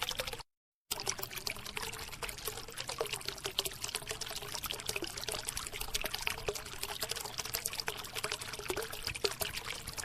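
A dense, steady crackle of loose grit pouring and shifting, broken by a sudden half-second gap about half a second in.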